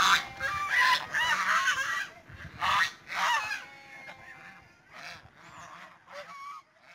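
A flock of geese honking, many calls overlapping. The calls are loud at first, then thin out and grow fainter over the last few seconds.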